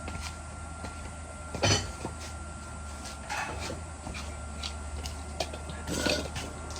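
Scattered knocks and clatters, the loudest about one and a half seconds in and a rougher clatter near the end, over a steady low hum.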